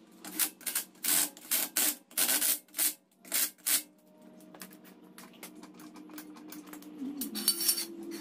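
Ratchet wrench clicking in quick bursts, about a dozen strokes in the first four seconds and another short run near the end, as the lug bolts of a car's front wheel are run in. A low steady hum runs underneath.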